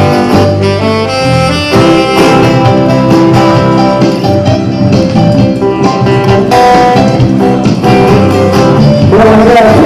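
A live band playing an instrumental passage of held melody notes over a steady accompaniment; a voice starts singing near the end.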